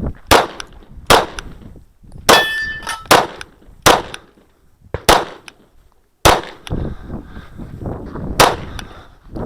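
Kahr CW9 9 mm pistol firing a string of about eight shots, spaced roughly a second apart. The shot about two seconds in is followed by a short metallic ring.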